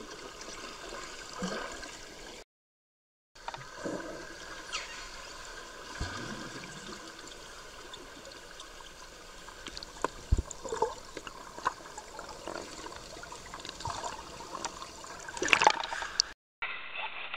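Swimming-pool water heard through an underwater camera: muffled gurgling and bubbling with scattered clicks and knocks. About fifteen and a half seconds in, the sound turns louder and splashy as the camera comes up through the churned surface.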